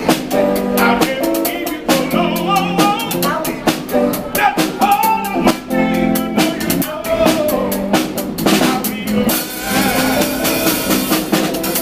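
Live street band: snare drum and cymbal beaten in a steady busy rhythm under electric guitar, with a man's voice singing over them.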